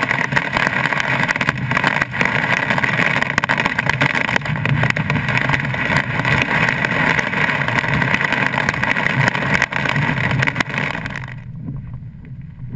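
Torrential rain mixed with hail pelting a car's roof and windscreen, heard from inside the cabin as a loud, dense hiss full of sharp hits. Near the end it cuts off suddenly to a much quieter low rumble of the car driving.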